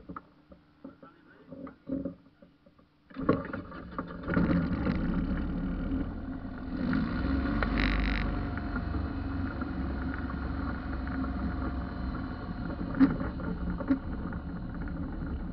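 An ultralight trike's engine starts about three seconds in and then runs steadily, turning the pusher propeller behind the seats.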